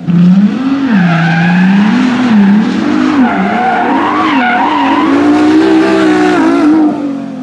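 Loud car engine revving, its pitch rising and falling again and again, with tyre squeal, easing off about seven seconds in.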